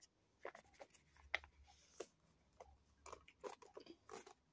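Faint crinkling and tearing of a foil-lined military ration retort pouch being ripped open by hand, heard as scattered short crackles.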